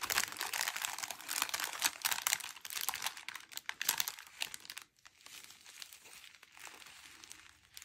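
Clear plastic bag crinkling as small zip-lock bags of diamond painting drills are handled and pulled out of it; busy for about the first five seconds, then fainter.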